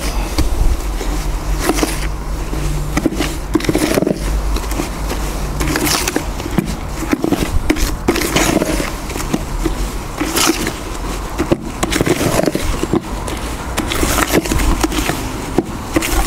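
A small trowel scraping and stirring a stiff cement, vermiculite and shaving-foam mix inside a plastic bucket, in repeated irregular strokes about one or two a second. The mix is still too dry for the foam to take.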